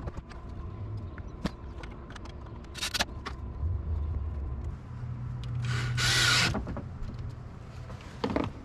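Cordless drill/driver driving a screw into the wooden bed frame: a short run a little before halfway, then a longer run with a loud noisy burst in the middle, among small clicks and knocks of handling.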